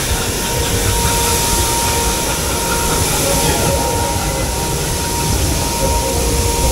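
Funhouse attraction machinery running: a steady mechanical rumble and hiss with a faint high whine.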